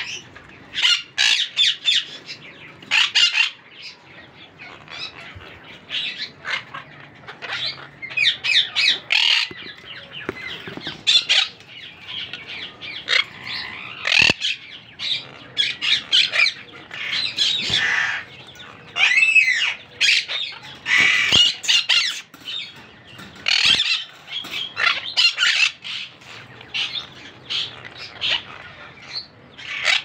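Parakeets squawking over and over: short, harsh, loud calls following one another every second or so with brief gaps.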